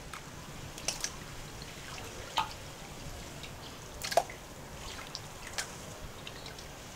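Water dripping: a few separate drops and small wet clicks spread over several seconds, the loudest a short falling plink about four seconds in, over a faint steady hiss.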